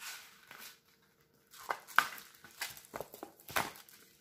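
Rustling and crinkling of plastic packaging and a diamond-painting canvas being handled, in short irregular bursts with a brief pause about a second in.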